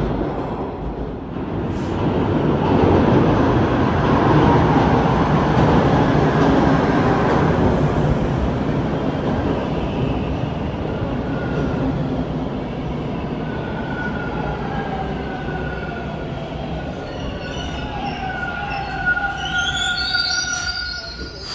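Bombardier T1 subway train rumbling into the station and slowing down, with whining and squealing tones that shift in pitch as it brakes towards a stop.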